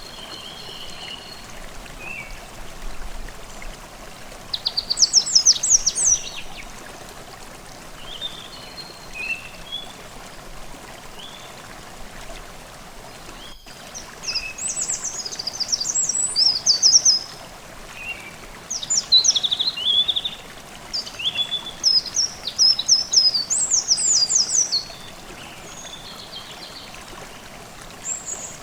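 Forest stream babbling steadily, with songbirds singing fast high trills in bursts, once about five seconds in and repeatedly from about the middle until shortly before the end.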